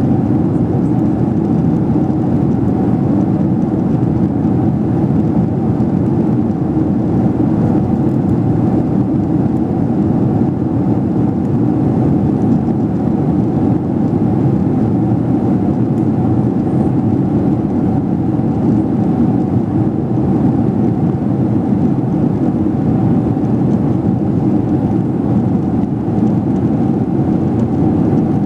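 Airliner cabin noise in flight: a steady, unbroken rush of engine and airflow noise, mostly low in pitch, with a faint steady hum on top.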